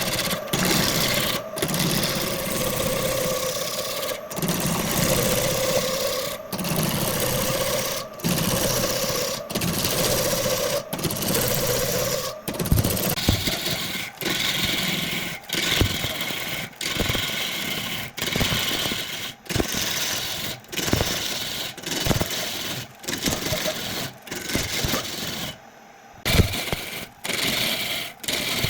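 Wood lathe running with a tool cutting the spinning wood: a steady motor hum under a hiss of cutting, broken off abruptly every second or so by short gaps. In the second half the hum fades and the cutting turns choppier, with separate knocks.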